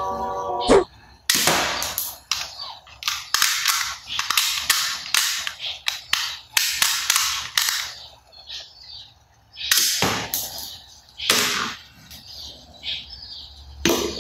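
Toy gun firing a rapid string of shot sounds for several seconds, then after a pause two more shots near the end.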